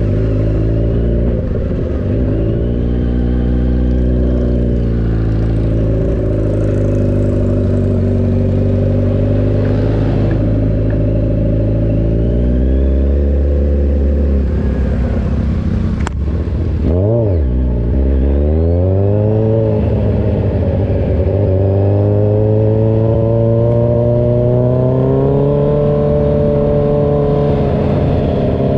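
Kawasaki Z1000 Sugomi's inline-four engine running loud through an Avionic V4 aftermarket exhaust, its engine speed rising and falling repeatedly. About two-thirds through there is a sharp click and the revs dip and jump quickly, then they climb steadily toward the end.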